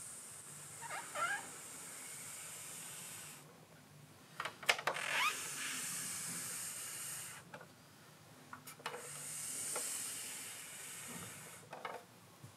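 Steady background hiss that cuts out twice, with a few short squeaks and clicks, the loudest cluster about five seconds in.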